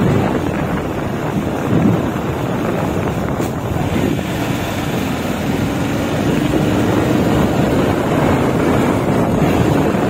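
Wind rushing and buffeting over the microphone on a moving vehicle, with a faint steady engine hum coming through about halfway in.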